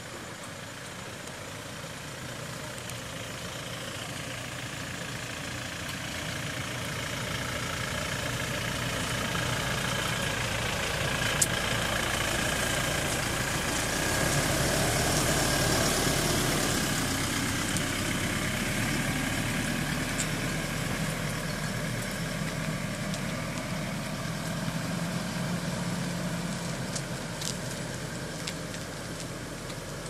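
Pickup truck engine driving slowly on a dirt forest track, growing louder as it approaches, passing close about halfway through, then fading as it drives away. There is a single sharp knock about eleven seconds in.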